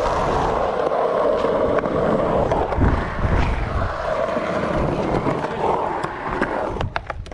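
Skateboard wheels rolling over a concrete bowl, a steady rumble that swells and eases as the rider carves the walls, with a few sharp clicks near the end.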